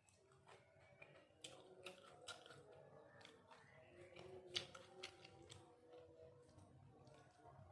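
Quiet eating sounds: scattered soft clicks and smacks of chewing, the sharpest about four and a half seconds in.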